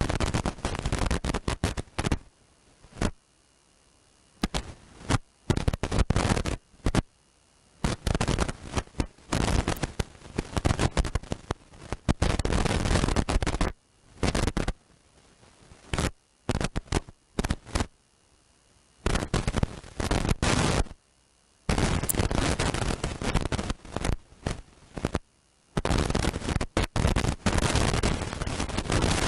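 Wind buffeting the microphone in irregular gusts, loud stretches of rumbling noise broken by short quiet gaps.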